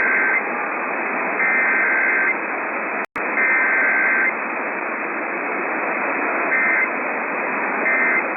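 Emergency Alert System digital data bursts, a shrill two-tone warble, heard through hissing radio static. Three bursts of about a second each come roughly a second apart, then three short bursts follow, the pattern of a SAME header followed by end-of-message codes. The audio drops out briefly about three seconds in.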